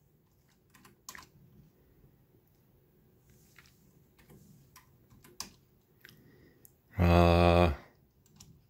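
Computer keyboard keys pressed one at a time: a few scattered soft clicks. About seven seconds in comes a short low buzzing sound lasting under a second, the loudest thing here.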